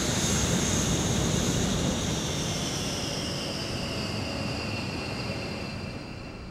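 B-1B bomber's four turbofan engines in a flypast: a steady jet rush with high whining tones that slowly drop in pitch as the sound gradually fades.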